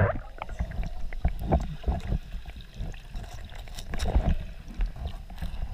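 Water sloshing and gurgling around a camera at and just below the sea surface, muffled by the water, with irregular low thuds and knocks.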